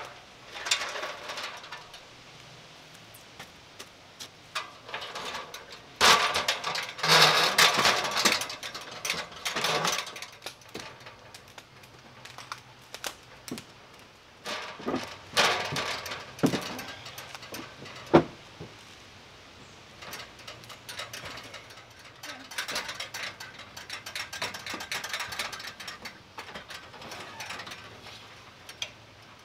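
Irregular knocks, rattles and clatter of an extension ladder and a long metal chimney pipe being handled as a man climbs the ladder with the pipe. The clatter is densest about six to ten seconds in, with a single sharp click a little past the middle.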